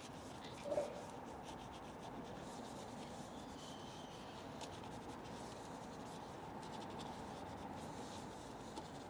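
Detail brush scrubbing in and around the spokes and brake caliper of an alloy wheel: a faint, steady rubbing of bristles.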